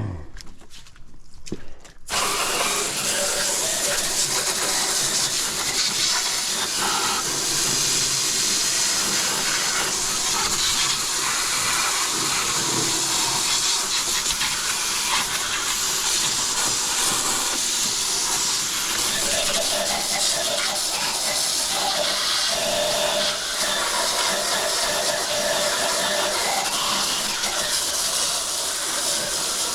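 Garden hose spraying water onto the iced-over outdoor coil of a Rheem heat pump, melting off the ice from a failed defrost. The spray starts suddenly about two seconds in as a loud, steady hiss.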